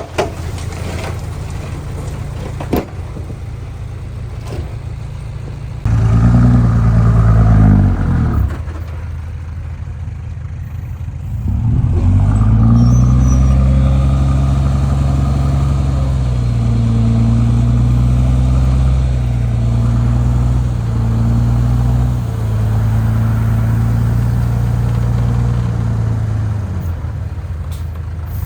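Heavy diesel engine of earthmoving equipment running, revving up sharply about six seconds in, easing off around eight seconds, then rising again about twelve seconds in and holding high revs, with slight dips in pitch near the end.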